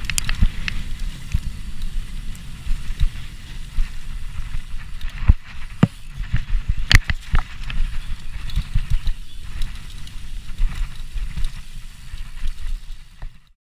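Giant Anthem SX full-suspension mountain bike descending a rough dirt trail: a steady low rumble from the tyres, with frequent sharp clacks and knocks as the bike rattles over bumps. The loudest knocks come a little past halfway, and the sound cuts off abruptly just before the end.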